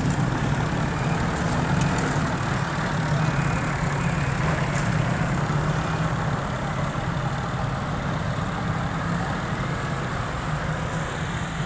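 A heavy vehicle engine running steadily at a low, even hum, with no marked revving.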